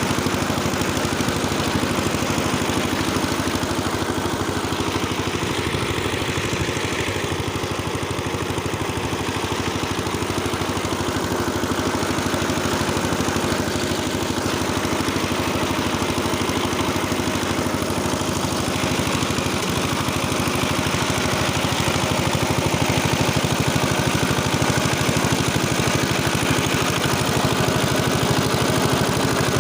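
Engine of a rotary tiller running steadily while it works the soil, with the churning of the tiller blades mixed in.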